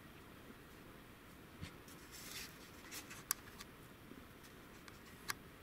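Faint scratchy rustling, with a few sharp clicks close by, the clearest about three seconds in and near the end.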